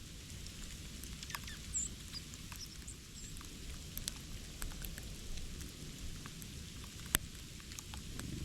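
Irregular light ticks and taps, with a single sharper tick about seven seconds in, and a few brief, high chirps from small birds near the start.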